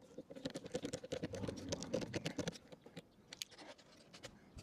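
A Torx screwdriver driving a self-tapping screw into the plastic mirror shell: a quick run of small clicks and scratches that thins out to a few clicks after about three seconds.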